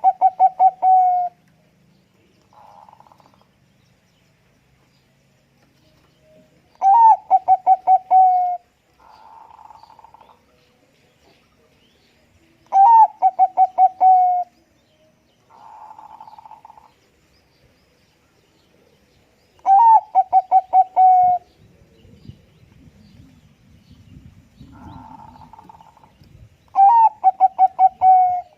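Zebra dove (Bangkok-type perkutut) cooing: five loud phrases about every seven seconds, each a quick run of rapid rolling notes that settle onto a steady lower pitch. Fainter, softer calls sound between the phrases.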